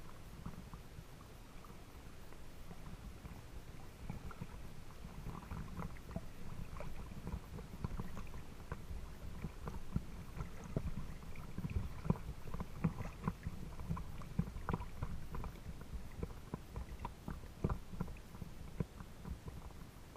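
Small waves lapping and sloshing against a camera riding at the waterline: a muffled low rumble with many irregular small splashes and ticks, busier from about four seconds in.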